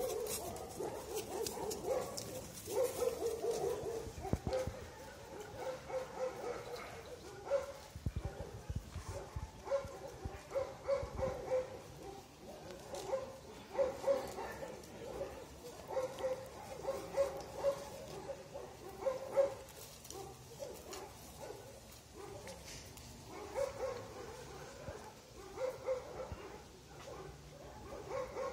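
Young wolves whining and yipping in short, high, repeated calls while tugging at a cloth in play.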